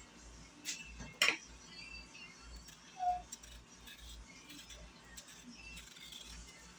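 A few light clinks of kitchen utensils and dishes, the loudest about a second in, with a short ringing clink about three seconds in.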